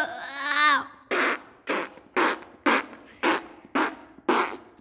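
Fart noises: a wavering pitched one at the start, then about seven short sputtering bursts at roughly two a second.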